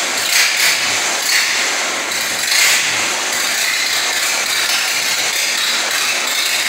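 1932 Ford AA truck's engine running, with a few uneven surges in the first seconds and then steadier.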